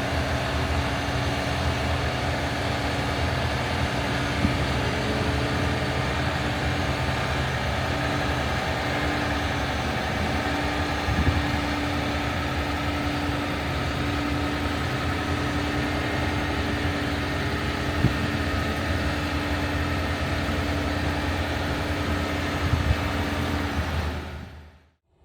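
Oxbo sweet corn harvester running steadily in the field: a continuous diesel engine drone with a steady hum, a few light knocks, fading out just before the end.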